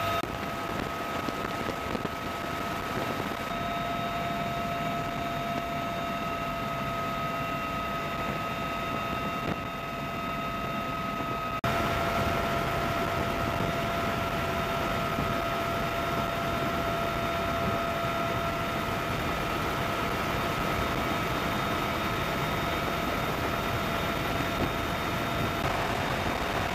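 Military helicopter in flight, heard from inside the cabin: a steady engine and rotor din with a high, even whine over it. About twelve seconds in, a cut makes it slightly louder and nudges the whine's pitch.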